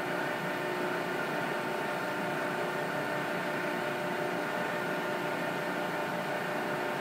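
Cincinnati 230-ton hydraulic press brake's hydraulic pump and motor running steadily with the ram at rest: an even hum with a few held tones over a hiss.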